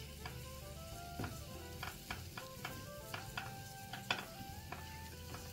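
Chopped garlic sizzling in a little hot oil in a pot while a spoon stirs it. The spoon scrapes and taps against the pot with short clicks, about two or three a second.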